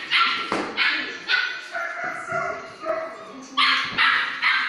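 Dog barking in sharp, high-pitched yaps: a few in the first second, then three more in quick succession near the end.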